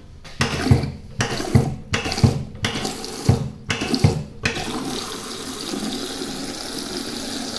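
Flush from a concealed push-button cistern into a stainless steel toilet pan. The water comes in several surging gushes, then runs in a steady rush that cuts off near the end. The owner takes the flush to need fixing, maybe a new valve.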